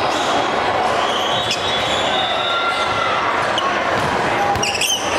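Indoor volleyball in a large gym: a steady din of voices from the hall, with sneakers squeaking on the hardwood floor and a few knocks of a ball being played. A short, sharper burst of sound comes near the end.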